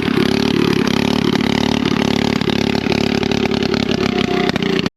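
Small riding-mower engine running hard at high throttle, its pitch holding steady after revving up, then cutting off abruptly near the end.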